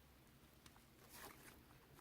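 Near silence: faint room tone with a few soft clicks and a brief rustle a little after a second in.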